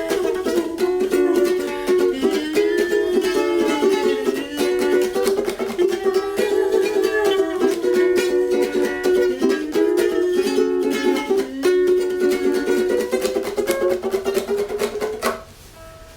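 Ukulele strummed and picked, playing a song passage; it stops about a second before the end.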